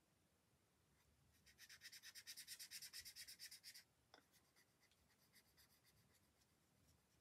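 Nova marker nib rubbing on paper card, colouring in with quick back-and-forth strokes for a couple of seconds, then a few fainter, sparser strokes.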